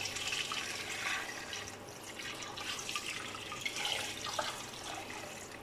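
Water poured in a steady stream from a glass jug into a cooking pot, splashing over chicken pieces as about a litre of water goes in for the stock.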